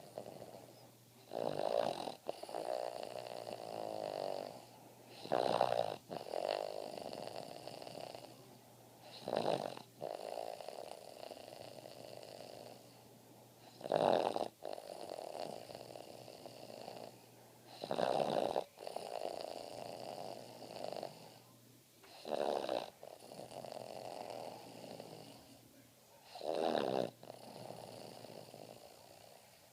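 Boston Terrier snoring in its sleep: a loud, short snore about every four seconds, each followed by a longer, softer breath.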